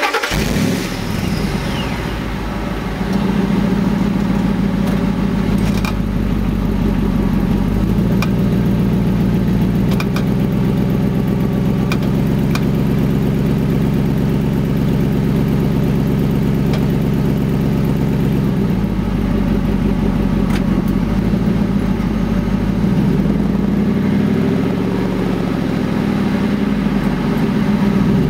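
Ford F-150 engine held under load by power-braking, running at steady raised revs, then changing around two-thirds of the way through, where a clicking sound comes in. The sharp clicking is what the owner suspects is an exhaust leak.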